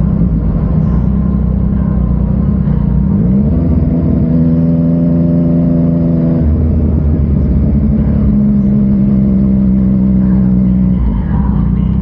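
Yamaha MT-09's inline-three engine through an Akrapovic exhaust under way, pulling under throttle. Its note rises in pitch about three seconds in and holds, drops about halfway through, comes back steady, and falls away again near the end.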